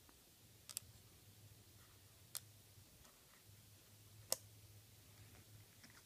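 A small screwdriver on the screws of a laptop's plastic drive-bay cover, putting the screws back in: three faint, sharp clicks about two seconds apart, the last one the loudest.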